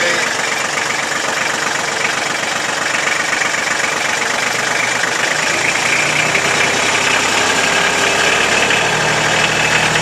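Kubota compact tractor's diesel engine running steadily at idle. A deeper engine note comes in about halfway through and the sound gets slightly louder.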